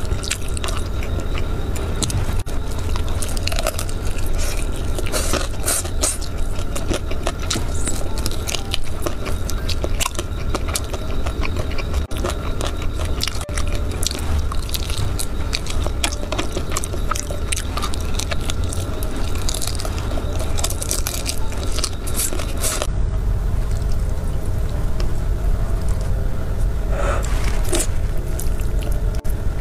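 Close-miked eating sounds: biting into and chewing fried chicken, with many short sharp crunches. About 23 s in, after a cut, noodles are eaten.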